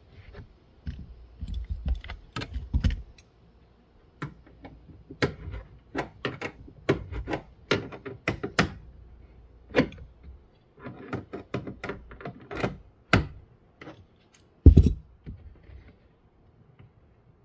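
Irregular clicks, taps and knocks of hands working on a car's taillight fittings and plastic trunk trim through the trunk-side access opening. A single heavier thump comes about fifteen seconds in.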